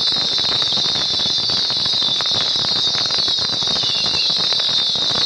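Professional display fireworks fired in two columns: a continuous piercing whistle that keeps sliding down in pitch, one fall after another, over a dense patter of crackles and small pops.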